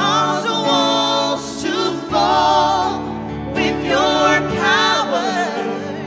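Praise and worship song sung live into microphones: a female lead with two backing singers, their voices held with vibrato, over a steady sustained accompaniment.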